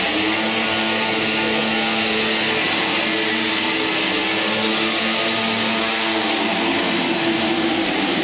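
Loud rock music led by a strummed electric guitar, with motorcycle engines running beneath it.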